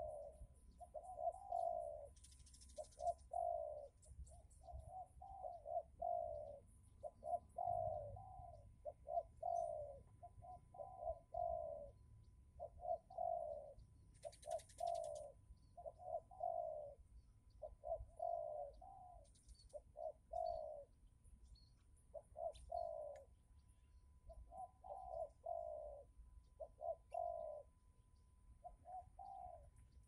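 Spotted doves cooing over and over, short phrases that fall in pitch, repeated about once a second with hardly a pause.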